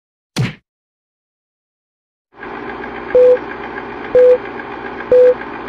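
Film countdown leader sound effect: a brief whoosh about half a second in, then, after about two seconds of silence, a steady film-projector whirr starts with a short beep once every second.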